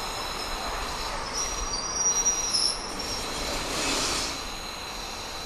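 KiHa 40 diesel railcar running on the rails with a steady rolling noise, its wheels squealing in thin high tones that are strongest one to three seconds in.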